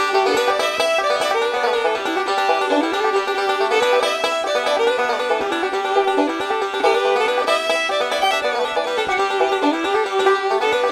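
Instrumental background music of quick plucked-string notes, steady throughout.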